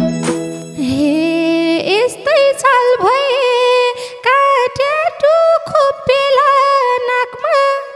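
The band's last held chord dies away over the first couple of seconds. A woman then sings a Nepali dohori phrase solo into a microphone, in long wavering, ornamented notes with no instruments behind her.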